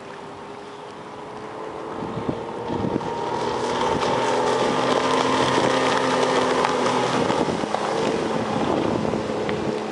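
Mercury 135 outboard on a bass boat running at high speed, getting louder over the first few seconds as the boat comes closer, then holding a steady engine note.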